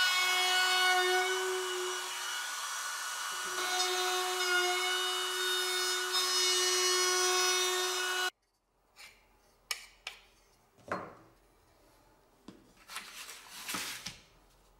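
Einhell trim router running at a steady high whine while routing the edge of plywood, its pitch dipping slightly under load; the whine cuts off suddenly about 8 seconds in. After it come a few light wooden knocks and a brief rub of wood on the bench.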